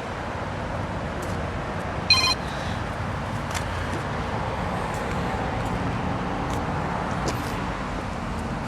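A single short electronic beep about two seconds in, over steady background noise.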